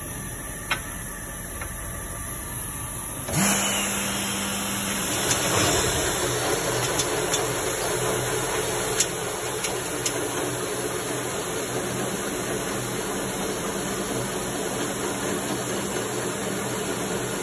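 Heidelberg folding machine starting up about three seconds in, jumping from a low hum to a steady rushing run, with a brief hum as it comes up to speed and a few sharp clicks.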